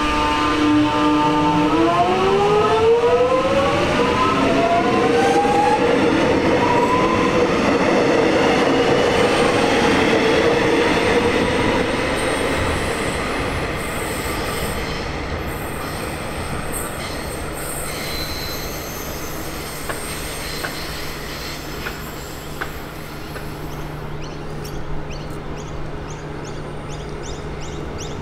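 An X'trapolis 100 electric train pulling away: its traction motors whine in several tones that rise in pitch as it accelerates, over louder rolling rail noise. After it fades, another X'trapolis train runs in with a steady low hum and a few light clicks near the end.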